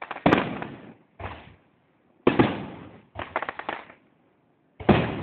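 Fireworks going off: a string of sharp bangs, each fading out over about half a second, with a quick run of crackling pops about three seconds in.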